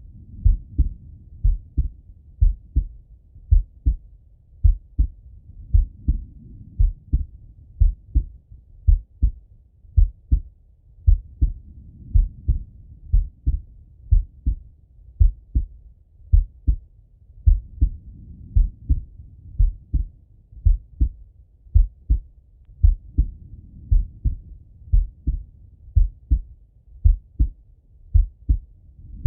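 A man's slow heartbeat heard through a Littmann stethoscope on the chest: steady, evenly paced lub-dub thumps, under a soft rushing that swells and fades every five or six seconds.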